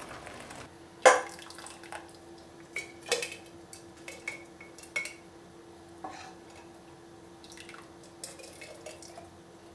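A metal ladle knocking and scraping against a stainless steel pot and clinking on a glass jar as hot jam is ladled into jars. It gives a scatter of sharp knocks, the loudest about a second in, over a faint steady hum.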